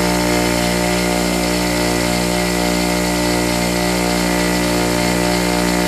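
Bench grinder motor running steadily, a constant hum with no change in speed or load.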